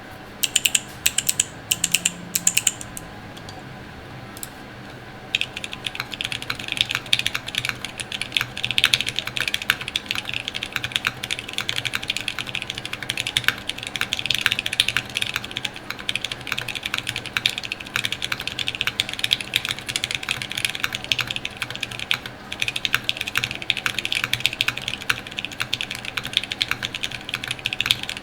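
Typing on a Salvation mechanical keyboard with an FR4 plate, no foam, lubed and filmed Zealios V2 tactile switches and CRP C64 R1 keycaps. A few short bursts of keystrokes come in the first three seconds, then a pause, then steady fast typing from about five seconds in.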